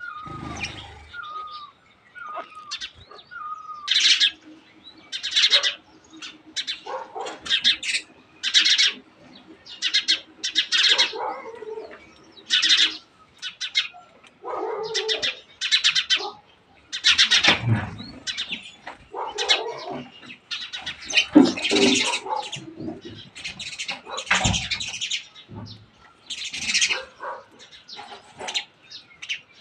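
Birds calling in repeated short, harsh chirping bursts, about one a second, with a few short whistled notes in the first few seconds.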